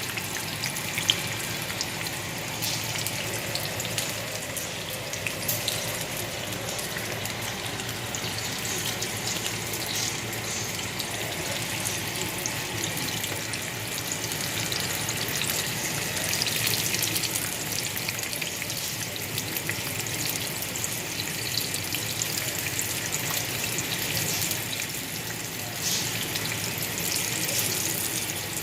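Green tomato slices frying in hot oil, a steady sizzle dotted with small crackles and pops.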